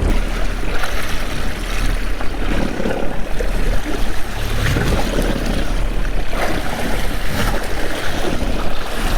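Wind buffeting the microphone and water slapping against a boat's hull on open ocean, over a steady low rumble, with scattered brief knocks and splashes.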